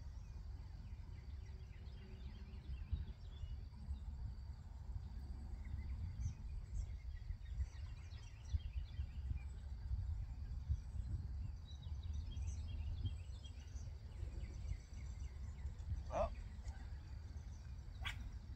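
Gusting wind rumbling on the microphone, with small birds chirping faintly and one louder short call near the end.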